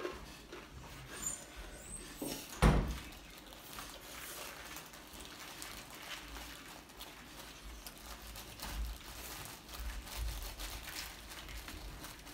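Eating sounds at a table: chewing, light clicks and the rustle of a plastic food wrapper, with one sharp thump about two and a half seconds in.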